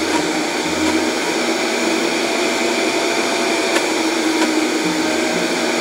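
Countertop blender running steadily at high speed, emulsifying egg and oil into homemade mayonnaise.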